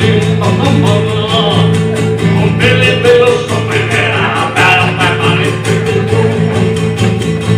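Amplified acoustic guitar strummed in a steady, quick rhythm as part of a live song, with a melody line bending up and down above it.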